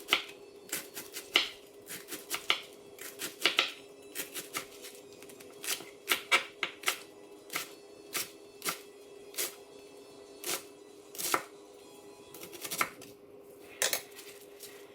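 Kitchen knife chopping red cabbage thin: irregular sharp chops, one to three a second, with short pauses between runs. The cabbage is cutting easily.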